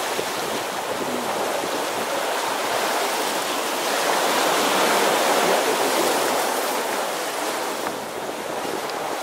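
Steady rush of water along the hulls of a catamaran sailing under way, swelling a little in the middle and easing slightly near the end.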